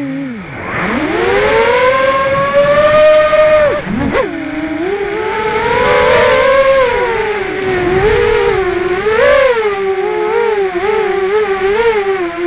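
Brushless motors and 5-inch props of a 250-size FPV racing quadcopter (Sunnysky 2204 2300kv motors on a 3S battery) whining in flight, heard from the onboard camera. The pitch follows the throttle: it dips at the start, climbs and holds high, drops abruptly about four seconds in, then wavers up and down.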